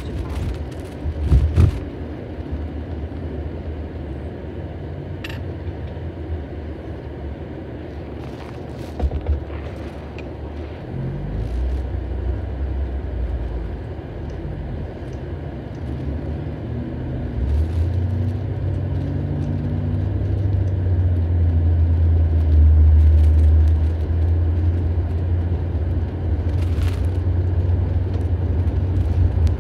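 Car cabin noise from inside a moving car: a steady low road-and-engine rumble. The engine note rises as the car speeds up, and the rumble grows louder in the second half. A few short knocks come in, the loudest about a second and a half in.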